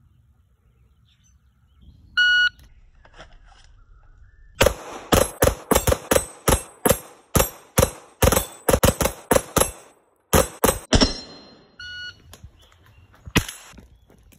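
A shot timer beeps once, then a rapid string of about twenty handgun shots rings out at steel targets, about three shots a second. A second timer beep follows, and a rifle shot comes near the end.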